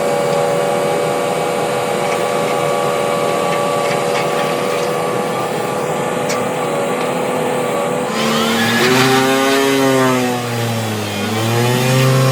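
Excavator-mounted Movax vibratory pile driver running, a steady machine hum for about eight seconds, then its pitch dips and rises twice as the machine's load and speed change.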